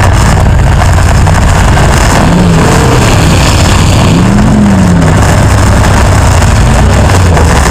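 Demolition derby car engines running, loud and distorted on a roof-mounted camera, with a steady low drone. An engine revs up and back down twice, briefly, in the middle.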